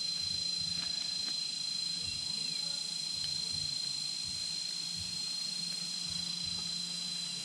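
Insects trilling: one steady, unbroken high-pitched tone, with a faint low hum beneath.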